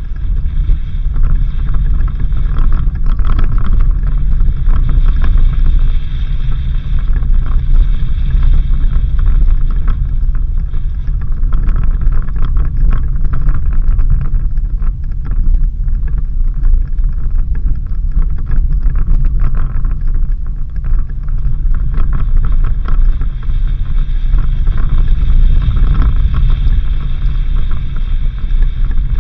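Suzuki Jimny 4x4 driving on a dirt road: a steady, loud low rumble of engine and tyres on the rough surface, with scattered small knocks and rattles.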